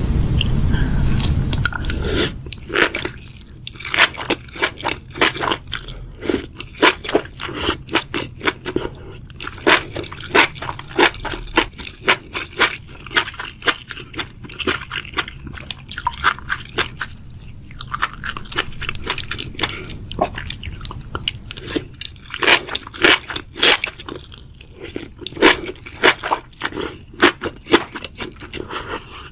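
Close-miked crunchy chewing and biting of food: many sharp, irregular crunches, several a second. A low, even rumbling noise runs through the first two seconds and then stops.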